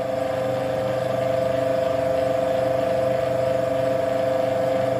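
Benchtop metal lathe running, its motor and spindle gearing giving a steady whine with a slight even flutter.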